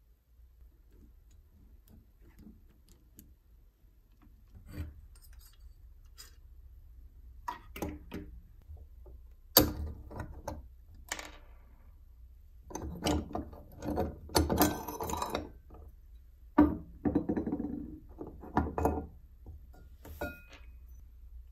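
Parts of an old hand-crank pencil sharpener being taken apart by hand: the duralumin housing and the steel helical cutter assembly clicking, knocking and scraping as they are worked loose and set down. Sparse at first, with denser handling noise through the middle and second half.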